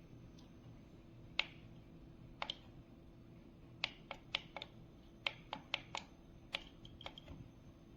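About a dozen sharp, short clicks at irregular spacing, coming in a quick cluster from about four to seven seconds in, over a faint steady hum.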